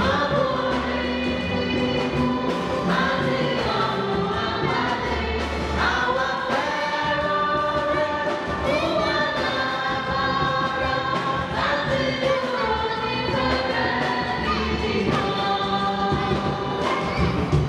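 Choir singing sacred music, sustained sung notes over a steady low accompaniment.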